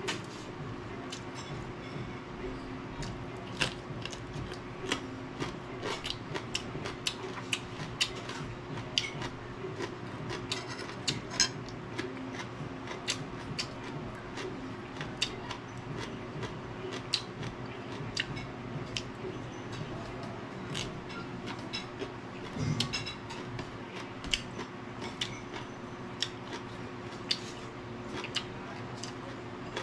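Raw green vegetables being chewed: crisp crunches, several a second and irregular, over a steady low hum.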